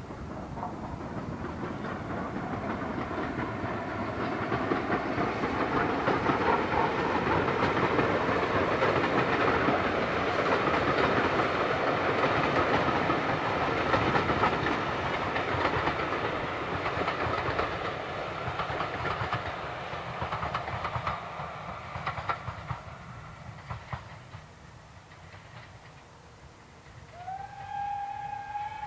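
Southern Railway Schools Class three-cylinder 4-4-0 steam locomotive 30925 passing with its coaches, with a rhythmic clatter of wheels over the rail joints. The sound builds up, is loudest about halfway through, then fades away. Near the end a steady high whistle-like tone starts with a brief upward slide.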